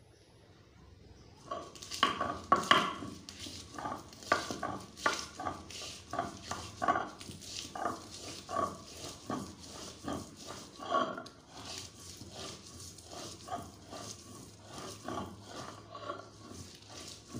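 Stone roller grinding garlic and red chilli on a flat grinding stone (shil-nora), in rough rubbing strokes at about two a second, starting about a second and a half in. The first strokes, crushing the garlic cloves, are the loudest.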